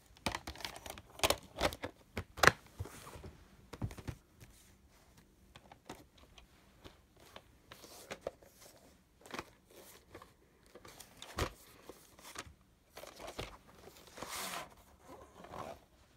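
Plastic VHS clamshell case being opened and handled, with the tape taken out and turned over: irregular clicks and knocks of plastic with bursts of rustling.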